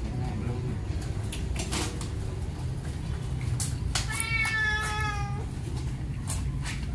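A Maine Coon cat meows once, a single drawn-out call lasting just over a second about four seconds in, falling slightly in pitch. A steady low hum runs underneath.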